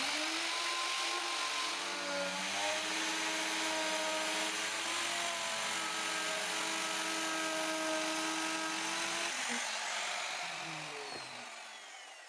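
Handheld electric wood router running under load as it cuts a groove along a wooden plank: a steady motor whine over the hiss of the cutter in the wood. Near the end it dies away as the router stops.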